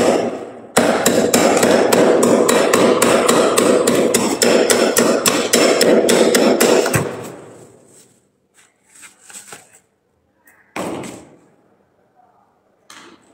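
Metal spoon scraping and chopping hard freezer frost in fast, even strokes, about five or six a second, which stop about seven seconds in. A couple of short crunches follow near the end.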